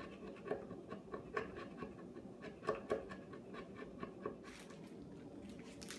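Sharp chisel scraping excess dried wood filler from the joint between a spindle and an oak chair seat: short, irregular scraping strokes, the loudest two close together about three seconds in.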